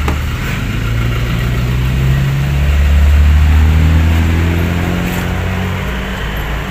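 A car engine running with a low, steady drone that swells louder and climbs a little in pitch about two seconds in, then eases back toward the end.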